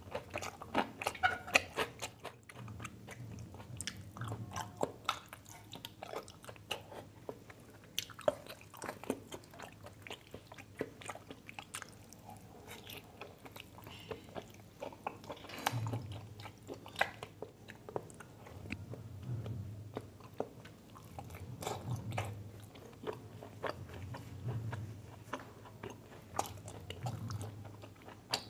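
A person eating: chewing and biting food, with many short wet and crunchy clicks in quick, uneven succession.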